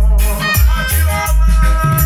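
Loud reggae music with a heavy bass line and a steady shaker rhythm.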